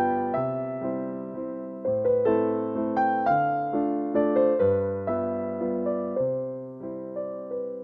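Background music: a gentle solo piano melody over slow bass notes.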